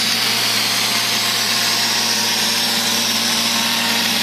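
Neato robot vacuum cleaner running: a steady motor hum under a constant hiss of suction.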